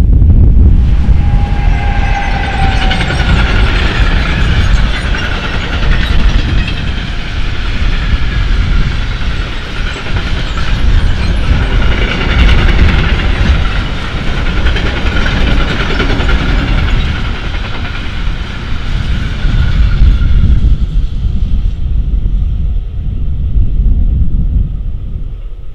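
Electric-hauled freight train of covered goods wagons passing close by. A continuous low rumble of wheels on rail runs under a high, shrill wheel noise, which dies away about 21 seconds in as the last wagons go by.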